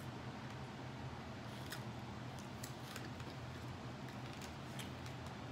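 Quiet eating sounds: a handful of faint clicks and taps from chewing and a plastic fork against takeout containers, over a steady low hum.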